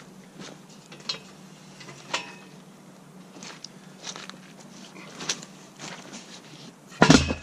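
Scattered light metal clanks and knocks as the slotted steel angle arm of a homemade tire bead breaker is moved. Near the end comes a heavy thud as a tire on a steel wheel is set down flat against the frame.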